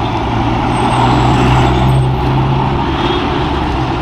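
Road traffic passing close by, with a heavy vehicle's low engine hum that swells about a second in and then eases off.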